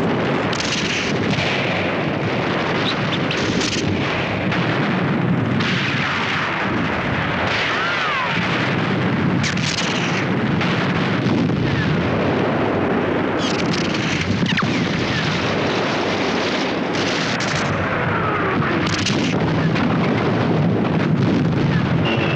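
Battle sound: a steady barrage of shell explosions and gunfire, dense and unbroken, with a few falling whistles.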